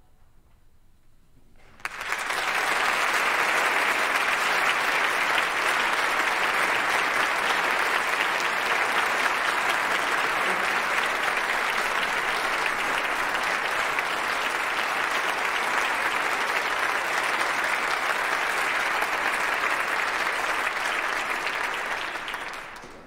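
Audience applauding a choir's performance. After a brief hush, steady clapping starts about two seconds in and dies away near the end.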